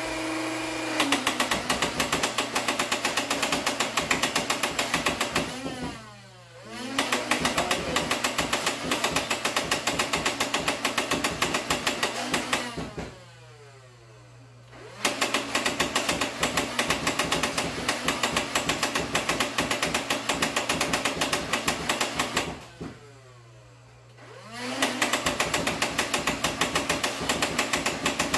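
Nerf Rival Prometheus blaster firing foam balls in long full-auto bursts: motors whirring under a rapid, even rattle of shots. Three times the shooting stops and the motors wind down with falling pitch, then spin back up and fire again.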